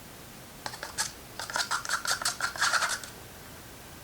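A stirrer clicking and scraping against the side of a small cup while acrylic paint is mixed with distilled water to thin it for an airbrush. It is a quick run of light clicks, about five a second, starting about a second in and stopping near three seconds.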